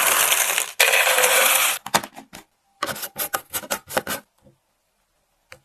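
Caramel-coated popcorn poured into a clear plastic jar in two dense rattling pours, then a run of short clicks and scrapes as a metal screw lid is twisted onto a jar.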